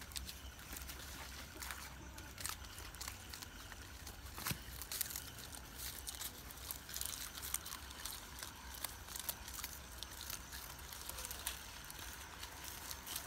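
Goat kids browsing and stepping about on dry straw and fallen leaves: irregular light crackling, rustling and crunching, with many small clicks throughout over a low steady hum.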